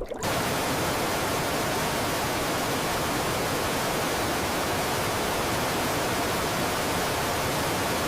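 A steady, even hiss of static-like noise at constant level. It starts abruptly and cuts off suddenly at the end.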